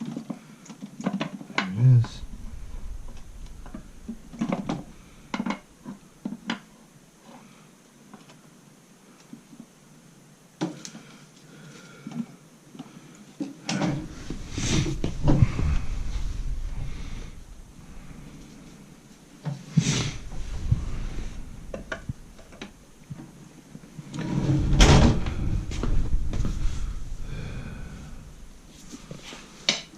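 Hand tools and metal transmission parts being handled on a workbench: scattered clicks and knocks, with a few heavier spells of clunking and rattling around the middle and near the end.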